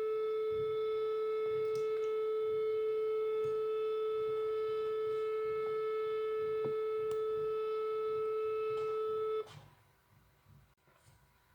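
Emergency alert siren holding one steady, buzzy tone, which cuts off suddenly near the end.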